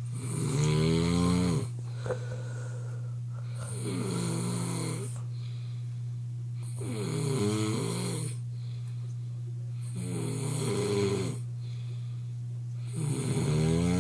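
A sleeping person snoring hard and loud: five snores, one about every three seconds, each lasting about a second and a half.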